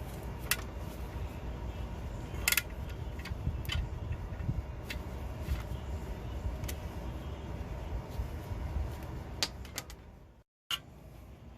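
Scattered metallic clicks and knocks of hand tools on metal, over a low steady rumble; the sound cuts out for a moment near the end.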